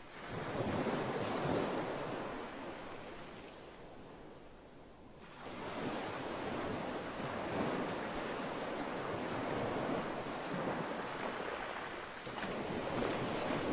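Ocean surf washing onto a beach: waves break and rush in, swell and fade, with a lull about four seconds in before the next wave surges in.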